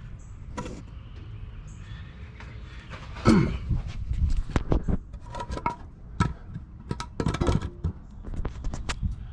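Irregular knocks, clicks and scrapes from a camera being handled and propped up under the truck, busiest from about three seconds in, over a low steady rumble.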